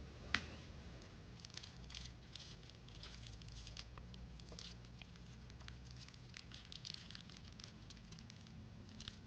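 Faint handling of Pokémon trading cards and their packs: scattered soft ticks and rustles as cards are slid past one another, with one sharper click about half a second in.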